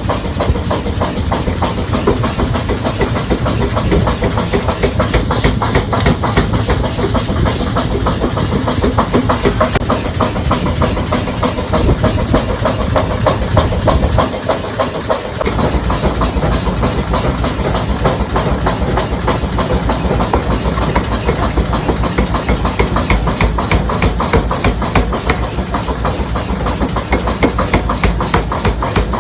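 Factory machinery running with a steady, rapid clatter of repeated strokes, dipping briefly about halfway through.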